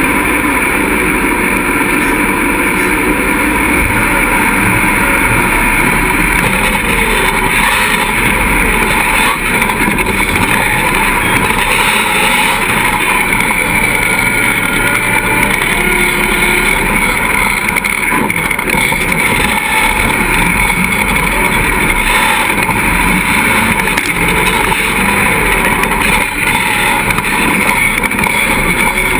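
Engine of a tube-frame 4x4 off-road buggy running under load through an onboard camera mounted on the roll cage. Its pitch rises and falls as the throttle changes.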